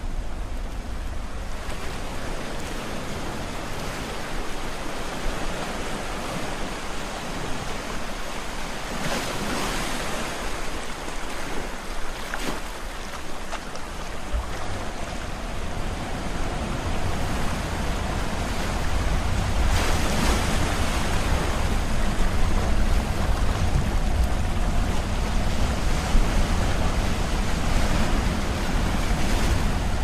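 Small sea waves breaking and washing up onto a sandy beach: a steady hiss of surf, swelling with bigger washes about nine and twenty seconds in. A low rumble builds under it from about halfway through.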